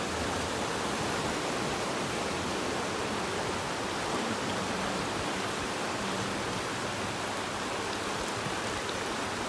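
Rushing river water running over rocks: a steady, even rush.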